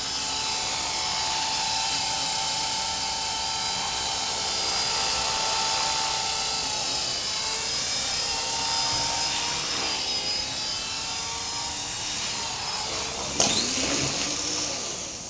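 CopterX 450SE electric RC helicopter's motor and rotor whining in flight, the pitch wavering as the throttle and blade pitch change. Near the end a sharp knock, after which the whine slides down in pitch and fades.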